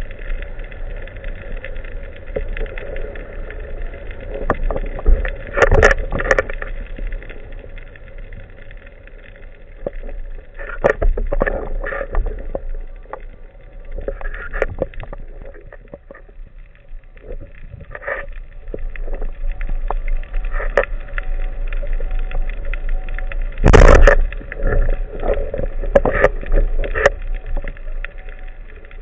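Underwater sound picked up by a camera mounted on a speargun: a steady low rumble with two faint steady tones, broken by several short, loud bursts of noise and clicks, the loudest about 24 seconds in.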